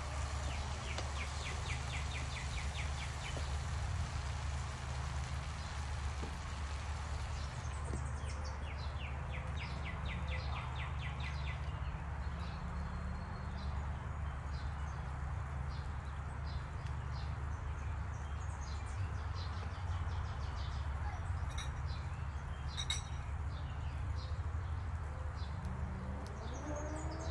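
Outdoor ambience with birds calling: two quick runs of rapid high chirps, one near the start and one about a third of the way in, over a steady low rumble. A few sharp clicks come about three quarters of the way through, and some rising whistled calls near the end.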